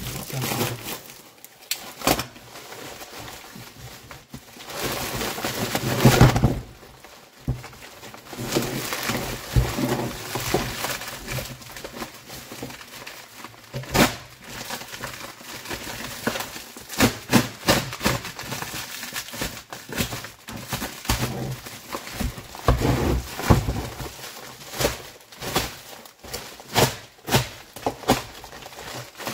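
Hand tools working on a small metal moped engine during disassembly: irregular clicks, knocks and scraping of metal parts, with a louder clatter about six seconds in and a sharp knock near the middle.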